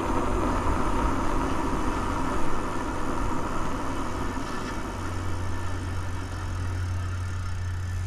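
Steady rush of wind over the microphone mixed with tyre and drivetrain noise from a Ride1Up Cafe Cruiser e-bike riding on pavement at about 15 mph, easing a little toward the end.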